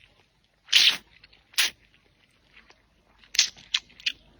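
A person eating right at the microphone: two loud wet mouth noises about a second in, then three short sharp ones a little after three seconds.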